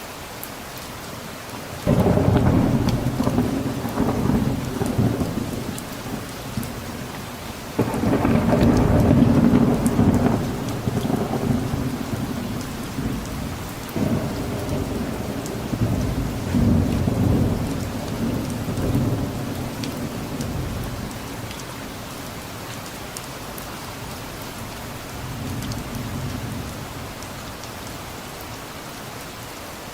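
Steady rain with rolling thunder. A loud peal breaks in suddenly about two seconds in, another at about eight seconds and a third at about fourteen, each rumbling on and fading, with a fainter rumble near the end.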